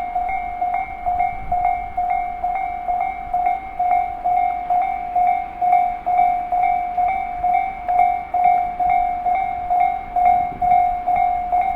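Japanese railway level crossing warning alarm ringing, one clanging tone repeating about two to three times a second, signalling that a train is approaching. A low rumble builds beneath it near the end.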